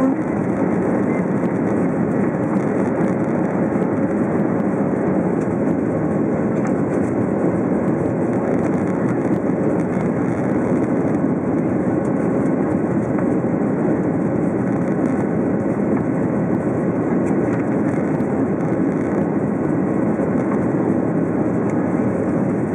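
Boeing 737-800's CFM56-7B turbofan engines at climb power, heard inside the cabin over the wing during the initial climb after takeoff: a steady, loud rushing noise with faint steady tones above it.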